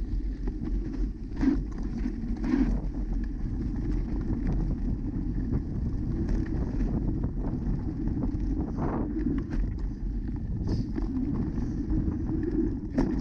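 Wind buffeting the microphone and the rumble of mountain bike tyres rolling over a dirt trail, with scattered clicks and rattles from the bike.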